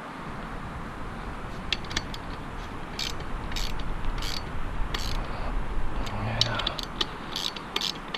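Irregular light clicks and knocks, more frequent in the second half, over a steady hiss: satellite dish mounting hardware and tools being handled on the roof.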